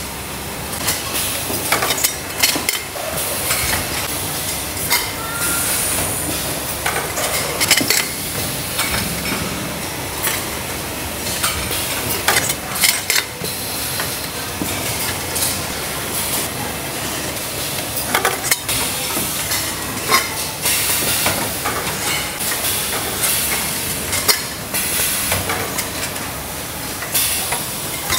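Factory machinery running with a steady hiss and frequent irregular metallic clanks and knocks: metal water bottles being handled and pressed in bottle-forming machines.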